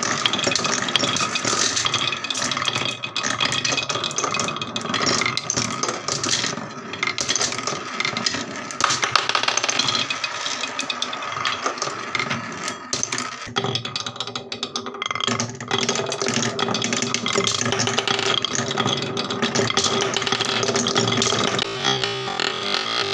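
Background music playing steadily, with held tones throughout.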